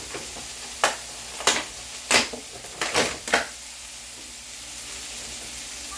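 Tomatoes frying in a pan, a steady sizzle, with about six sharp clicks and knocks in the first half, the loudest about two seconds in.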